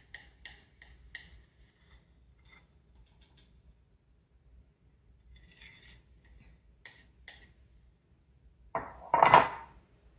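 Light clinks and taps of a utensil against a dish, scattered in two spells, then a much louder clatter of dishes about nine seconds in.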